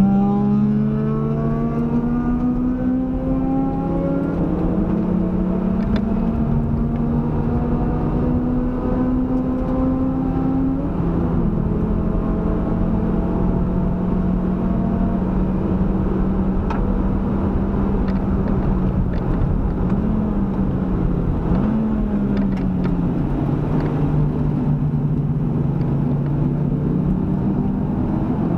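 Proton Inspira's four-cylinder engine pulling hard at speed, its note climbing slowly for about ten seconds, then dropping at an upshift and holding steady, with a brief dip and recovery about two-thirds of the way through and a rise near the end, all over a steady rushing noise.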